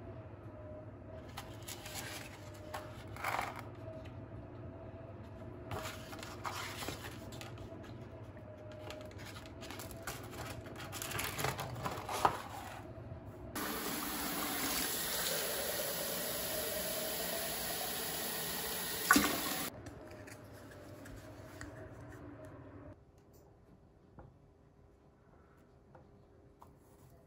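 Kitchen tap running water into a plastic shaker cup for about six seconds, ending with a sharp knock as it stops. Before it come intermittent rustling and handling sounds over a faint steady hum.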